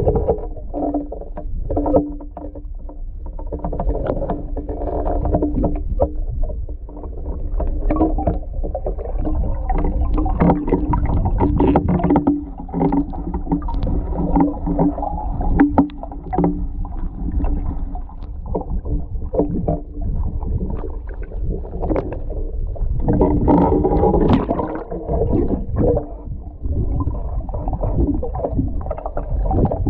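Water sloshing and gurgling as heard underwater, muffled and low, with frequent short knocks and splashes as a person in waders moves in deep water. It grows louder for a couple of seconds about three-quarters of the way through.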